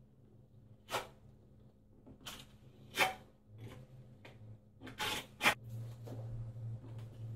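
Steel notched trowel scraping thin-set mortar across a wall in several short strokes, the loudest about three and five and a half seconds in.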